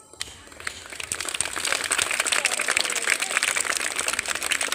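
A crowd of schoolchildren clapping, the applause building about a second in and holding steady.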